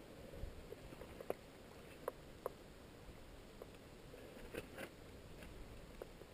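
Faint, scattered taps and scuffs of a climber's hands and rock shoes on a granite boulder during a bouldering climb, about ten sharp little knocks over a few seconds against a quiet outdoor background.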